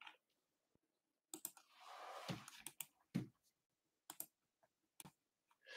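Faint, scattered sharp clicks, a dozen or so at uneven gaps, with a short soft rustle of handling about two seconds in.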